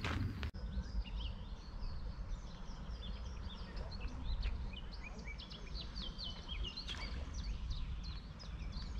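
Songbirds chirping and singing, many short high notes one after another, over a low steady rumble. Footsteps on a gravel path stop about half a second in.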